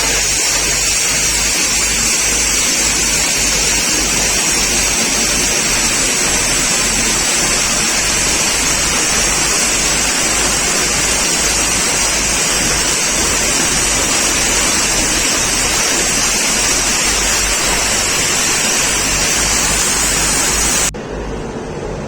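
Loud, steady hiss of compressed air from a train's air-brake hose line as the locomotive is coupled to the coaches, over a low rumble. It cuts off suddenly about a second before the end.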